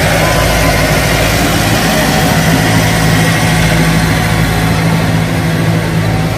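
Ice cream truck's engine idling steadily, a constant hum.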